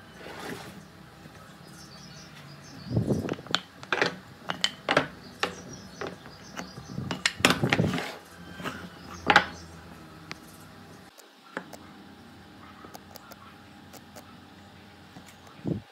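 Irregular knocks and clicks of workshop handling, wood and tools being set down and moved, bunched in the first half and sparse after.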